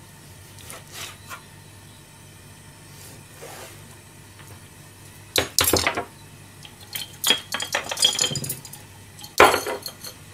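A few light knife taps on a plastic cutting board, then a clatter as a steel chef's knife is laid down on a stainless-steel counter about halfway through. Ringing clinks and a sharp knock follow as bamboo skewers are handled in their container.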